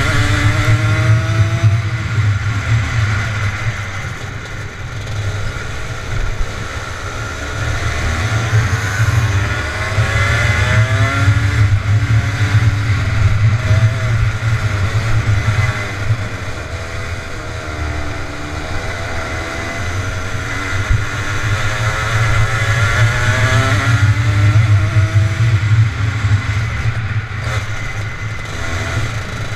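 Rotax Max Junior 125 cc two-stroke kart engine heard from on board, revving up on the straights and dropping back into the corners, over and over.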